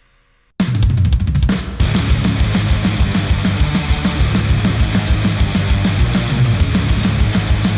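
Heavy rock music with fast, driving drums and guitar, starting abruptly about half a second in after a brief silence, played back through Audio-Technica ATH-R70x-series headphones and recorded by a microphone at the earcup.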